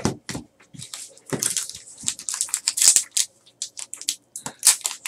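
Trading card pack wrapper being torn open and crinkled by hand, with cards handled and set down: an irregular run of sharp crackles and rips.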